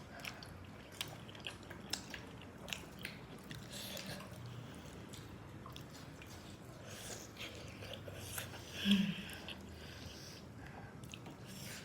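Close-up chewing and biting of steamed chicken momos, with scattered small wet mouth clicks. A brief louder voiced sound comes from the eater about nine seconds in.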